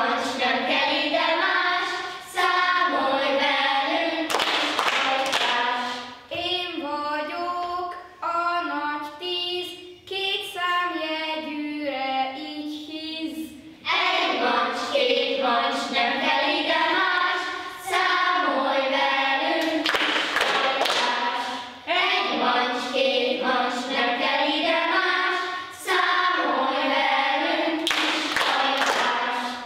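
A group of children and a woman singing a song together, in phrases of about four seconds each.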